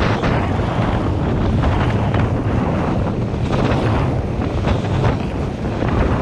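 Wind buffeting the microphone and water rushing and spraying off the hull of a boat running fast over choppy sea, with a steady low drone underneath.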